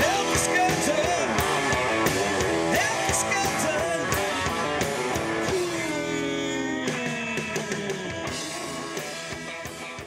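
Live rock band playing: electric guitars, bass and drum kit with a steady beat. About six seconds in there is a long falling pitch slide, and the music gradually gets quieter toward the end.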